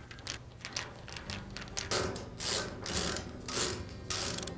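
Screws being backed out of a washer's sheet-metal cabinet with a 5/16-inch nut driver: a run of quick clicks, then louder scraping bursts in the second half as the screws and driver work loose.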